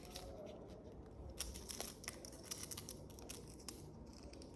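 Faint handling noise: a scatter of small clicks and light rustles, thickest through the middle, as the jewellery and its packaging are handled.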